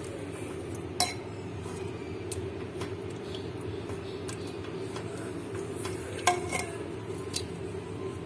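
A metal spoon clinking and scraping against a metal pot while mashing cooked kidney beans into thick gravy. Sharp clinks come about a second in, twice more around six to seven seconds, and lighter ones between, over a steady low hum.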